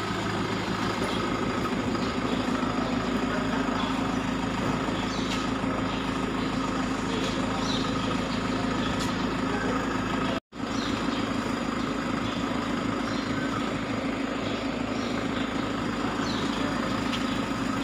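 A vehicle engine idling steadily, a low even hum. The sound cuts out for an instant about ten seconds in.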